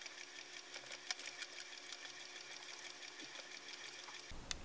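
Stationary exercise bike being pedalled: a faint, fast, even ticking from the flywheel and pedal mechanism with a low hum underneath.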